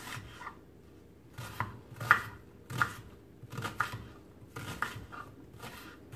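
Knife chopping an onion into coarse pieces on a cutting board. Irregular knocks come about every half second to a second, a few in quick pairs.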